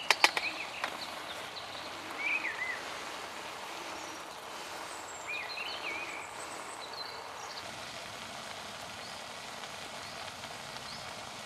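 Gas camping stove burning with a steady hiss under a cooking pot, with a few clacks of a wooden spoon stirring in the pot in the first second. Small songbirds chirp now and then.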